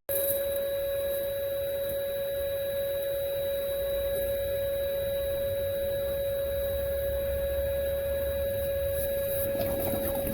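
Vacuum running with a steady, unchanging whine, pulling suction on the truck's coolant reservoir to hold back coolant while the block heater is out.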